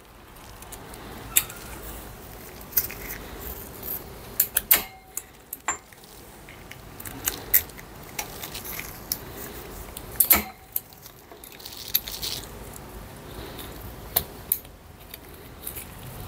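Small metal clicks and taps as a kickstart return spring is worked onto the kick-start shaft of a Kawasaki ZX130 engine case with a hand tool. The clicks come irregularly, with two sharper clacks about five and ten seconds in.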